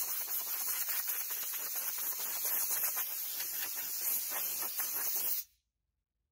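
Compressed-air blow gun on a compressor hose hissing in one long steady blast as dust is blown off a 3D-printed armor part before painting, cutting off abruptly about five seconds in.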